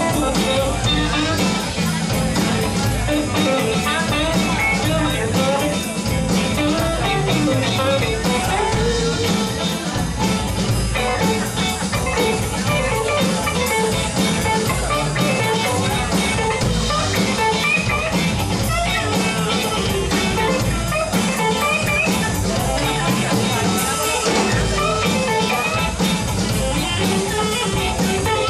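Live band playing an instrumental funk groove, with electric guitars over a drum kit.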